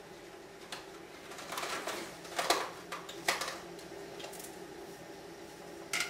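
Scattered clicks and rustles of things being handled at a kitchen counter while a drink is made, over a steady low hum.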